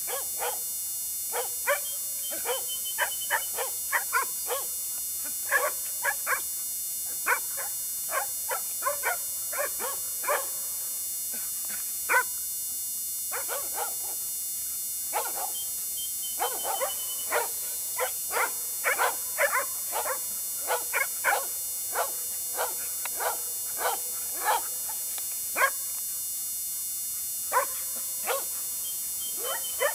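Dobermans barking over and over, short sharp barks coming in irregular runs with brief pauses between.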